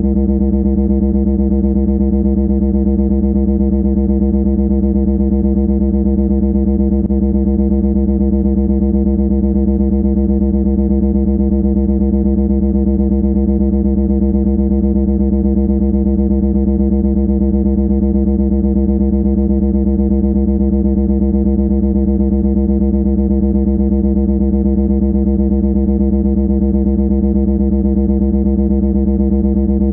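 A loud, steady buzzing drone on one low pitch with a rapid flutter, unchanging in pitch and loudness.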